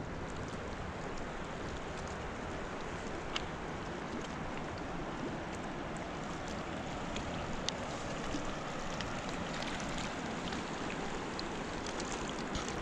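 Steady rushing wind noise buffeting the microphone, with a few faint clicks.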